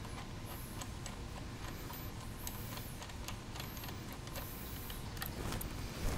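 Faint, irregular light clicks and taps of small motorcycle rearset parts being handled by hand, over steady low background noise.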